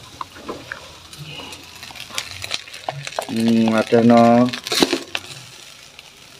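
A metal spatula scraping and tapping in a wok as fried rice is scooped out into a plastic bowl, over a light sizzle. About three seconds in comes a long drawn-out call in two parts, louder than the cooking.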